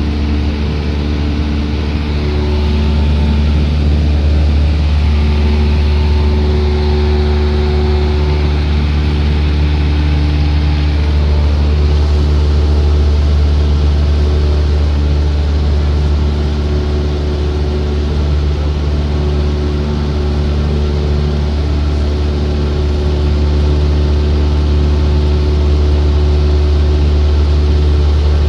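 Single-engine light aircraft's engine and propeller, a steady loud drone with a deep hum, heard from inside the cabin in flight.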